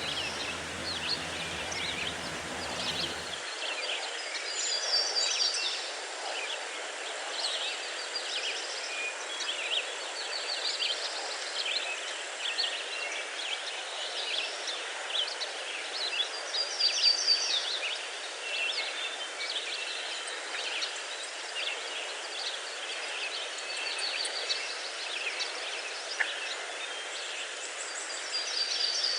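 Steady rushing of a waterfall, with many small birds chirping and trilling over it. The deep low part of the rush drops away about three seconds in.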